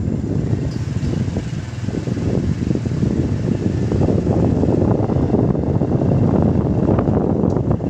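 Wind rushing and buffeting on the microphone while riding a Honda Dash 110 underbone motorcycle, with its engine running underneath. The rushing grows louder from about halfway.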